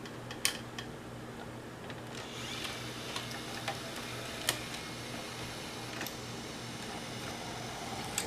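Panasonic AG-450 S-VHS camcorder's tape transport running in play, a low steady whir with a few sharp mechanical clicks, while the tape fails to move: the owner thinks the pinch roller is dry and has no grip.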